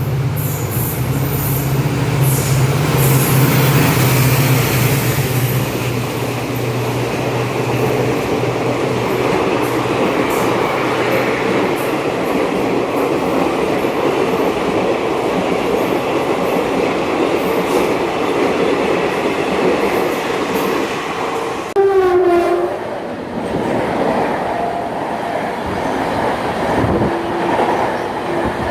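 A train running past on the rails with a steady rumble and wheel clatter. About 22 seconds in, a brief tone slides down in pitch.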